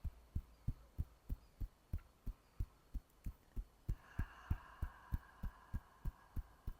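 Fingertips tapping hard on the chest beneath the collarbone, a steady run of dull thumps at about three a second. A faint steady hum joins about four seconds in.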